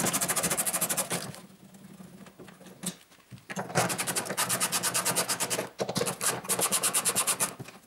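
Rapid, evenly spaced clicking from a tool undoing the Torx 25 screws that hold a car's tailgate lock unit. It comes in three runs, with a pause of about two seconds after the first.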